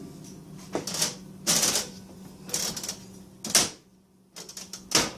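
1920 National Cash Register mechanism clacking as it is worked through its cycle: a series of sharp mechanical clacks, a loud one about three and a half seconds in, then a quick run of ticks and another loud clack near the end.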